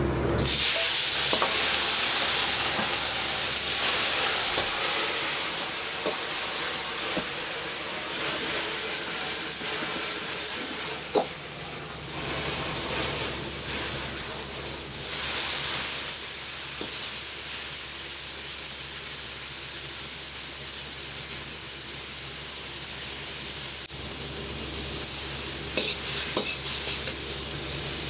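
Food sizzling and frying in a hot pan as it is stirred. The sizzle starts suddenly and is loudest for the first few seconds, then settles to a steady hiss, with a few sharp clicks of a utensil against the pan.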